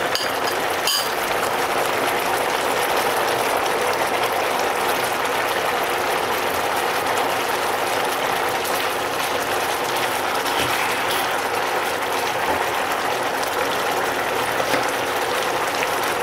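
Soy sauce bubbling and sizzling around fish fillets in a hot pan: a steady, dense crackle, with one light knock about a second in.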